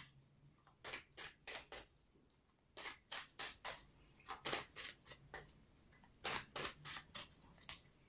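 A tarot deck shuffled overhand by hand: quick, soft swishes and flicks of cards dropping from one hand into the other, in runs of three to five strokes with short pauses between.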